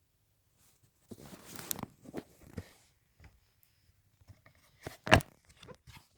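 A person sniffling and blowing their nose, with a tissue rustling. It is quiet at first; a noisy blow with crackles comes about a second in, then smaller sniffs and rustles, and a short, loud one about five seconds in.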